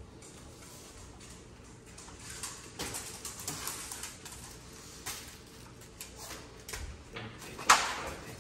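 A small dog's claws clicking and pattering on a hard plank floor as it walks about, then one sharp knock near the end.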